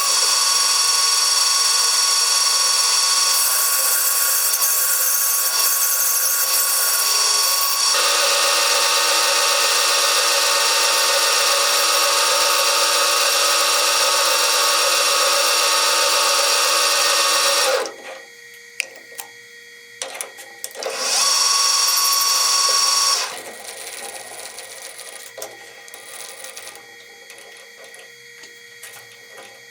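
A power tool running loudly and steadily, with a whine of several steady tones, then stopping about eighteen seconds in. It runs again briefly a few seconds later, then gives way to quieter clicks and knocks of handling.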